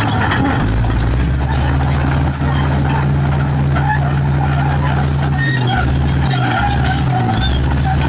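Komatsu D65P bulldozer's diesel engine running steadily at close range as the dozer pushes rocks with its blade. The low engine note dips briefly a few times in the second half.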